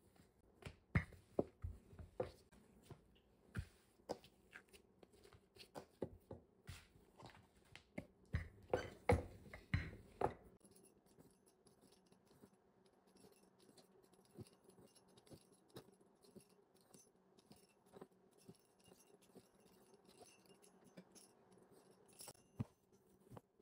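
Wooden rolling pin rolling dough on a silicone baking mat over a countertop: a run of irregular knocks and thumps that stops about ten seconds in. After that there are only faint light taps as the dough sheet is cut into strips.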